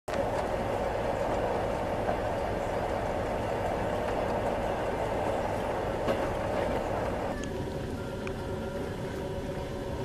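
Passenger train running, heard from inside the carriage: a steady rumble of the wheels on the rails, thinning somewhat about seven seconds in.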